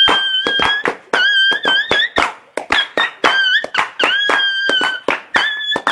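Music: a high, steady, whistle-like melody line over rapid, sharp percussion hits.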